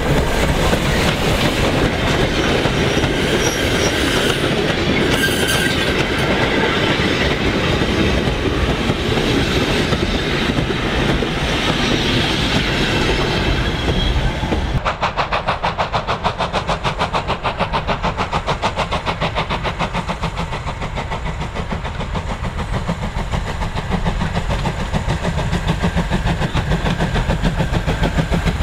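LMS Ivatt Class 2MT 2-6-2T steam tank locomotive No. 41312 passing with a short goods train, the wagon wheels clattering over the rail joints. About halfway through, the sound changes to the locomotive coming on under steam, its exhaust beating in a quick, even rhythm.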